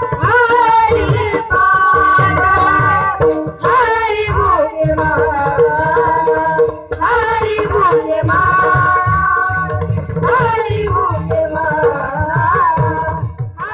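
A boy singing a devotional song in long, ornamented held notes that waver and glide, with pakhawaj drumming under him.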